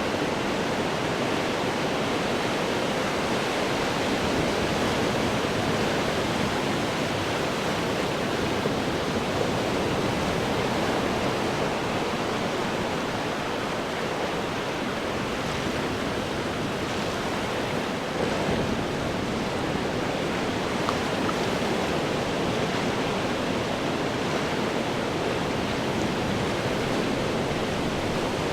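Ocean surf breaking against rocks: a dense, steady rush of churning water with little rise and fall in loudness.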